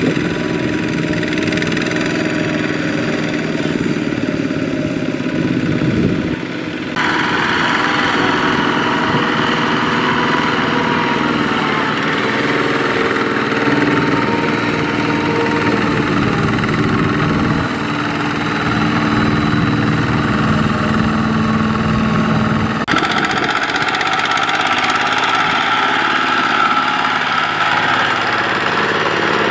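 Two-wheel walking tractors' single-cylinder diesel engines running steadily, pulling loaded trailers through deep mud. The engine note shifts abruptly twice.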